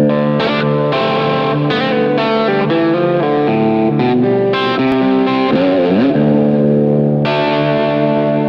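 Distorted electric guitar playing a run of sustained chords through effects. About six seconds in it bends or slides in pitch, then settles on a long held chord near the end.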